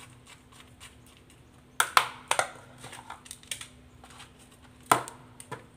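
A spoon packing a grated mixture into a banana-leaf cone over a plastic bowl: a few sharp clicks and crinkles of the leaf and spoon, the loudest about two seconds in and again near the end, over a faint steady hum.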